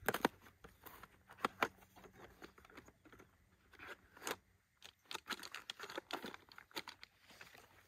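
Cardboard box of shotgun shells being opened and handled: rustling cardboard and irregular light clicks as shells are taken out of the box.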